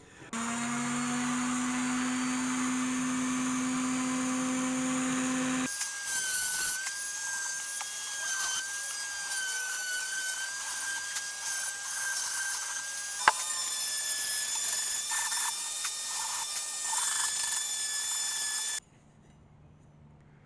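A power tool runs steadily with a low motor hum. About six seconds in, an abrupt change brings a higher-pitched, whining, grinding sound, with one sharp click in the middle. This sound stops suddenly near the end.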